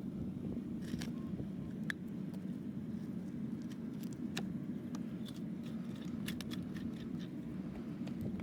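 Scattered sharp clicks and short scrapes of a farrier's tools working a horse's hoof, over a steady low rumble.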